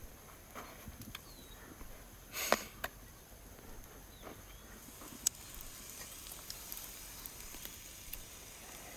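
Steaks grilling over a wood fire: a faint steady sizzle, with a few sharp crackling pops from the burning wood, the loudest about two and a half seconds in.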